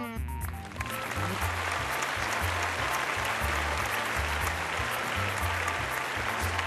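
Applause that swells in about a second in and carries on over background music with a repeating bass line.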